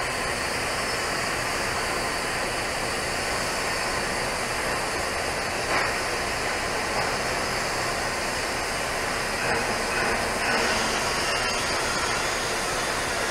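TIG welding arc burning steadily on a pipe joint, giving an even hiss.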